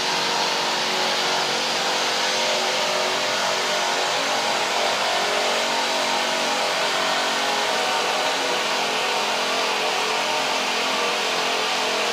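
Gekko InLine Spinner centrifugal concentrator running in its spin-out stage, feed valve closed: a steady machine whir from the drive and the spinning bowl, with an even hiss over it.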